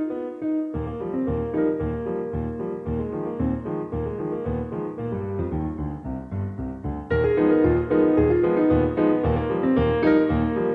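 Background piano music with a steady beat underneath, getting louder about seven seconds in.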